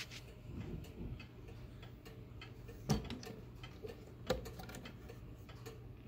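1930s F.M.S. Mauthe wall clock's pendulum movement ticking, its movement freshly cleaned and oiled. Two louder knocks come about three and four seconds in.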